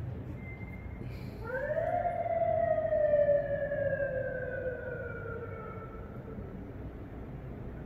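A siren out in the city gives one wail: it rises quickly, then slowly falls away and fades over about four seconds. Under it is a steady low rumble of distant traffic.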